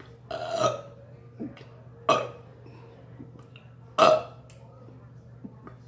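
A woman burping three times, about two seconds apart. The first burp is the longest.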